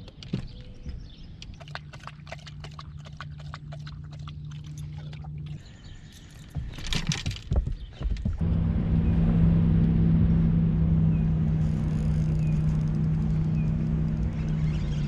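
A dog's claws clicking on a boat deck as it walks, in quick irregular ticks over a faint steady hum. After a louder jumble, a steady low engine hum takes over, much louder, with faint bird chirps above it.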